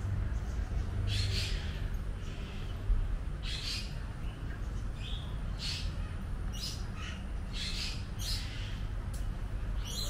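Birds giving short, harsh calls, about one a second, over a steady low hum.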